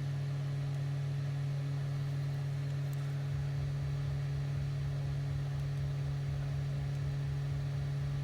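Steady low hum with fainter higher tones above it, and a faint rapid pulsing underneath from about three seconds in.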